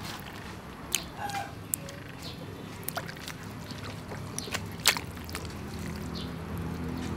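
Raw pork pieces and intestines going into a wide metal wok of water, with soft splashing and sloshing and a few sharp clicks and knocks, the loudest about five seconds in, over a steady low rumble.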